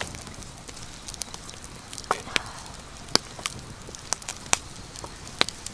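Wood campfire crackling, with irregular sharp pops from the burning logs.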